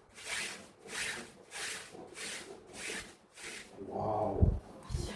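Rhythmic hand scrubbing or rubbing of a surface: about six even back-and-forth strokes, each a short hiss. They stop near the end, where a louder, lower sound comes in, likely a voice.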